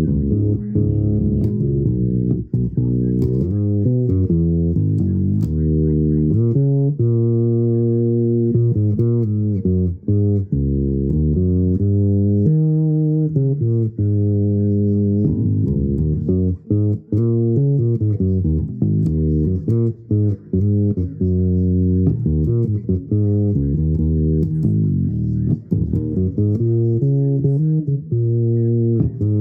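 Solo improvised playing on a low-pitched plucked string instrument: a continuous run of notes in a low register, broken by a few brief gaps between phrases.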